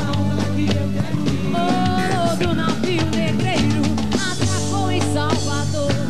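Axé music: a woman singing into a microphone over a band with a steady, driving drum beat.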